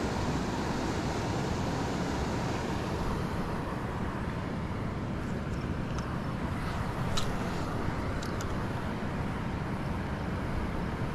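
Steady rushing of the river with wind buffeting the microphone. A few faint clicks come from the spinning reel as it is handled about halfway through.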